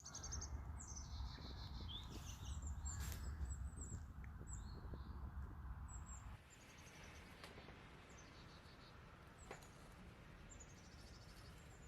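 Birds chirping in short, rapid high-pitched series, over a low rumble that drops away about six seconds in.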